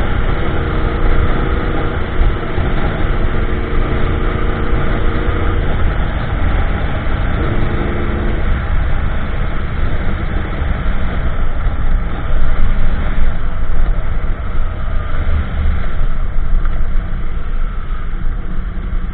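A 2015 Yamaha YZF-R1M's crossplane inline-four cruising on the road through an Akrapovic slip-on exhaust with an MJS link pipe and factory headers. Its steady engine tones stand out for the first six seconds or so, come back briefly around eight seconds, then fade into a more even road rush.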